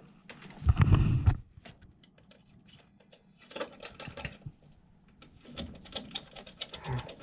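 Irregular light clicks and taps of small parts and tools being handled in a furnace cabinet, with a short low burst about a second in.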